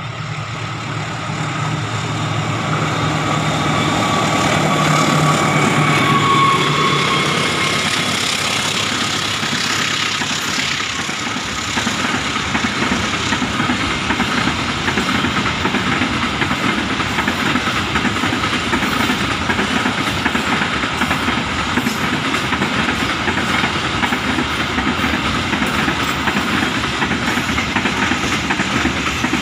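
Container freight train passing close by. In the first several seconds the diesel locomotive's engine hum and a high tone that falls slightly rise to a peak as it goes by. Then the long line of container flatcars rolls past with steady wheel-on-rail rumble and clickety-clack.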